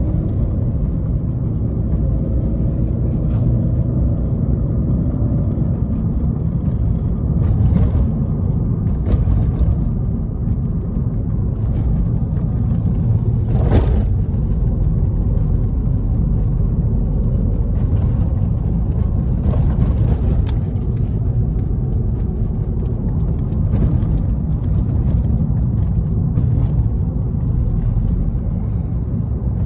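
A car driving on the road: steady low engine and road rumble, with a few short, sharper noises across it, the loudest about 14 seconds in.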